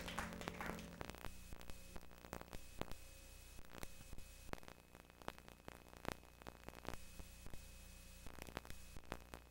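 Faint steady electrical hum with scattered sharp clicks and crackle, after a louder sound fades out in the first second.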